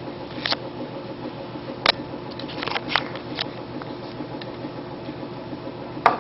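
A few light clicks and taps from handling the model rocket's cardboard motor tube and the glue bottle, over a steady fan-like room hum. The sharpest click comes about two seconds in, a small cluster follows around three seconds, and another comes near the end.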